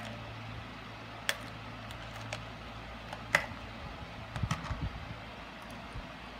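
Small beads clicking now and then as they are picked up by hand and pressed onto the glued paper, with a cluster of clicks and soft knocks a little past the middle, over a steady low hum.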